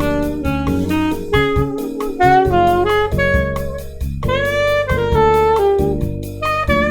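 Saxophone improvising jazz lines over a play-along backing track with drums, a progression alternating two bars of E-flat major and two bars of E minor.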